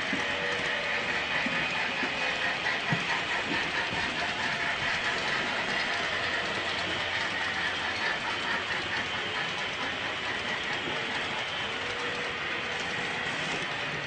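HO-scale model train running on the layout: a steady, rapid clicking of small wheels and gearing, with faint thin whining tones.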